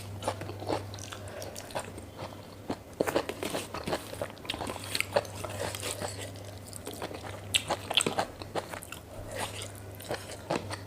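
Close-up mouth sounds of a person eating: irregular wet smacks, clicks and crunches of biting and chewing food. A steady low hum runs underneath.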